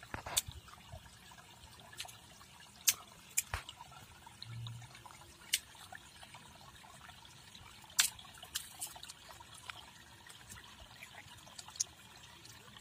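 Shallow water trickling through a woven bamboo fish trap set in a rice-field channel, with several short sharp clicks at irregular intervals.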